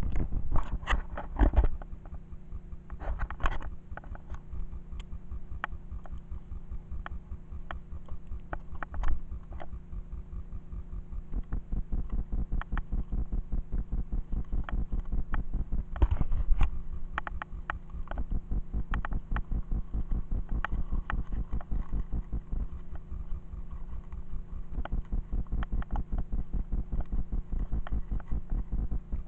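Riding noise of a mountain bike on a gravel forest track, picked up by a handlebar-mounted camera: a steady, fast rattling throb from the bars and mount, with sharper knocks over bumps now and then, loudest in the first couple of seconds and again about halfway through.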